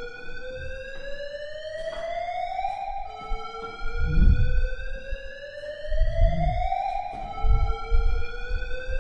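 Warning-siren sound effect: rising alarm sweeps, each climbing in pitch for about two seconds and repeating so they overlap, with low bass hits coming in about four seconds in.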